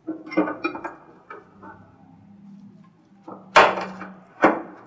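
Plastic top cover piece of a scroll vacuum pump being handled and fitted into place: a few light clattering knocks, then two sharp knocks near the end as it is pressed down onto the pump.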